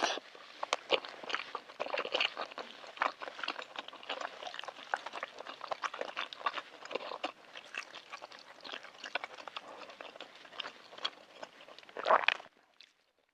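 Close-miked chewing of balut, the boiled fertilised duck egg, with dense wet mouth clicks and small crunches, and a louder burst near the end.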